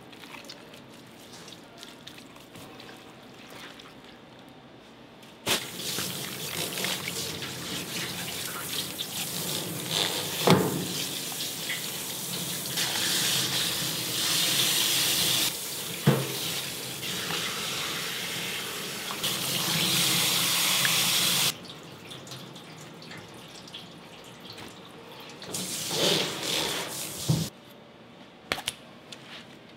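Tap water running onto a gutted fish as it is rinsed on a plastic cutting board, starting suddenly about five seconds in, splashing for about sixteen seconds and cut off sharply. A couple of knocks sound while it runs.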